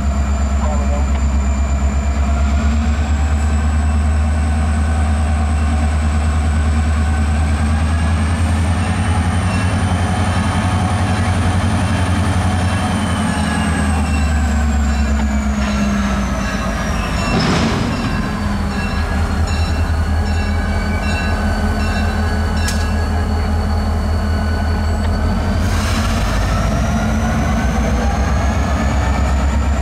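Diesel freight locomotives working hard as they pull a train slowly along, the engines' pitch rising and falling with the throttle, over a high whine that climbs, drops and climbs again. A single sharp bang comes about halfway through.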